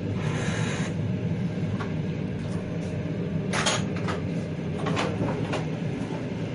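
Passenger train running on the rails: a steady low rumble of the wheels and carriage, with a short hiss in the first second and a few sharp knocks and rattles, the loudest about three and a half seconds in.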